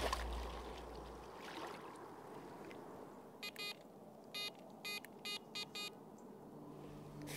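Electronic carp bite alarms giving about seven short, irregular beeps over two or three seconds, as the rods are set and the line registers on the alarms.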